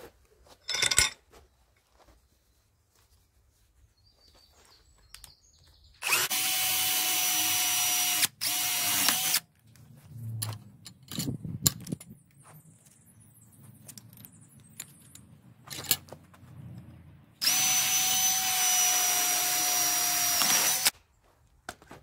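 Cordless drill running in two steady bursts of about three seconds each, with a short stop in the first, drilling into a small steel trap part clamped in a bench vise. Between the bursts come clicks and knocks of metal being handled at the vise, with a sharp clack about a second in.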